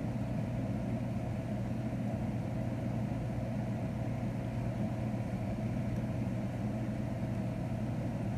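Steady low mechanical hum with a few held tones, unchanging throughout.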